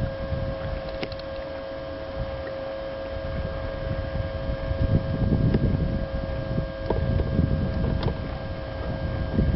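Wind buffeting the microphone on an open boat, a low rumble that grows stronger about halfway through, over a steady high electric hum, with a few faint clicks of rod and reel handling.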